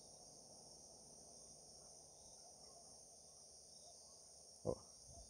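Near silence with a steady, faint high-pitched hiss, and one brief soft sound near the end.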